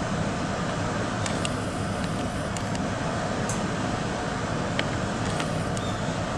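Steady low rumbling background noise, with a few brief, faint high bird chirps scattered through it, one a quick downward sweep.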